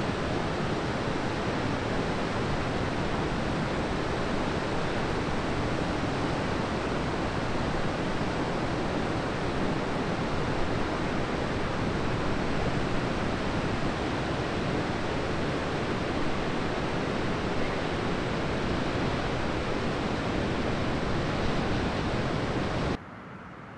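Steady roar of heavy ocean surf breaking, a constant rushing noise that drops sharply near the end.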